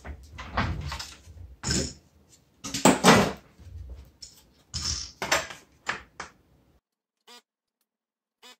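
Clattering knocks and rattles as the plastic-framed circuit board of a GM truck instrument cluster is handled, pulled from its housing and set down on a silicone mat. Near the end come two short buzzes from a Hakko desoldering gun's vacuum pump as it sucks solder from the stepper-motor pins.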